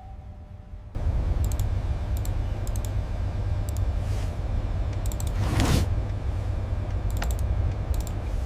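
A low steady rumble starts about a second in, with scattered sharp clicks over it and a brief hiss a little past the middle.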